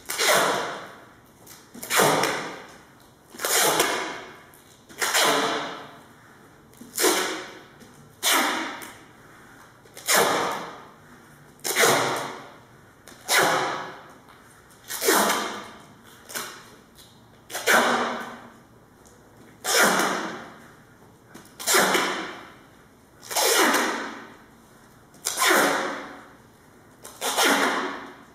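Heavy, regular breathing through a respirator mask: a loud rush of air about every two seconds, each one sharp at the start and fading away.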